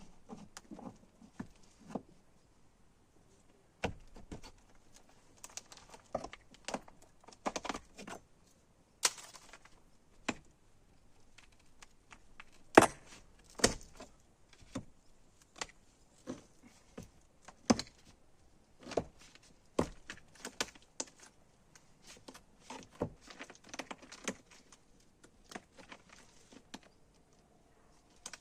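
Irregular clicks, knocks and rattles of tools and materials being handled during renovation work, with one sharper knock about halfway through.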